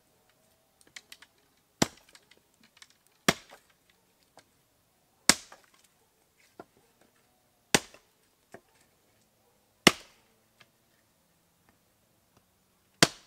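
Hatchet chopping thin branches on a wooden chopping block: six sharp strikes a couple of seconds apart, with light clicks of sticks being handled between them.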